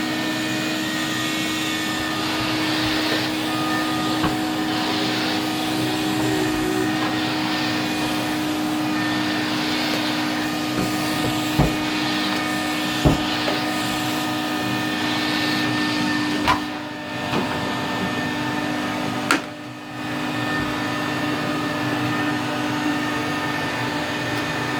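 Numatic Henry vacuum cleaner running with a steady droning hum. A few sharp knocks come through it, and the sound drops briefly twice about two-thirds of the way through.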